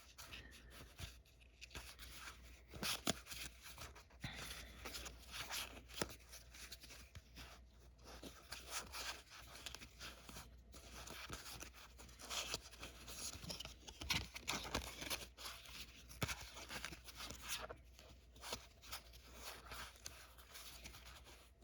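Trading cards being handled and flipped through by hand: faint, irregular rustles, slides and soft taps of card against card.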